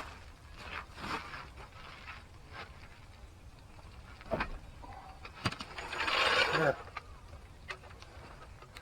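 Car jack being let down and worked: scattered mechanical clicks and clunks, with a louder scraping burst about six seconds in.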